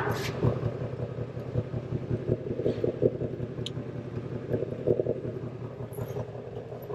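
Steady low mechanical hum, with faint rustling and a few light clicks over it.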